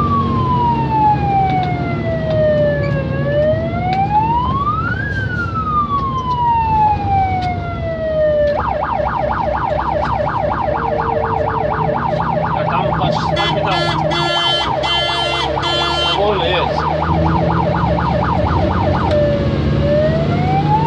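Fire engine's siren heard from inside the cab: a slow wail rising and falling, switching about eight seconds in to a rapid yelp, with a horn blast of about three seconds in the middle of the yelp, and back to the slow wail near the end. The truck's diesel engine runs underneath.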